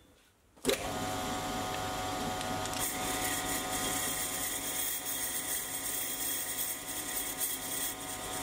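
Sieg C3 mini lathe running at low speed, its high-speed-steel tool taking a light turning cut on a brass tube. The steady motor whine starts suddenly just under a second in.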